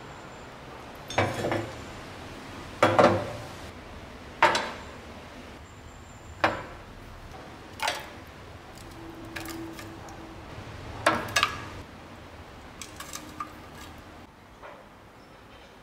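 Metal tongs and hot coals clanking against a cast-iron charcoal iron and wood stove top as glowing coals are loaded into the iron. About seven sharp metal clanks a second or two apart, then a few lighter ticks near the end.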